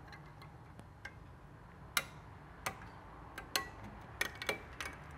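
Drum brake shoe hardware clicking as a hold-down spring and pin are worked into place by hand. The light metal clicks come irregularly and bunch up in the second half, and a few ring briefly.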